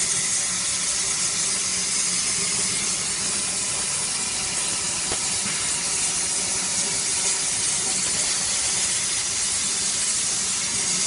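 Plasma torch of a CNC pipe-intersection cutting machine cutting through a pipe: a steady hiss, with a faint steady hum underneath.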